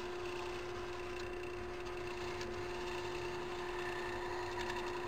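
Small metal lathe running with a steady hum while a hand-held knurling tool's two serrated wheels press a cross-hatch pattern into a turning brass tube, with a few faint ticks of the wheels on the metal.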